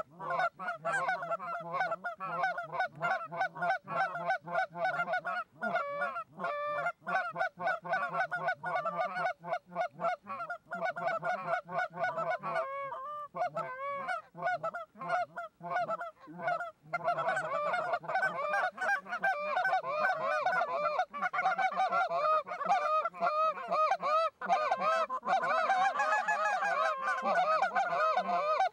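Goose honks and clucks, many short calls overlapping almost without a break, thinning briefly in the middle and growing denser from about seventeen seconds in.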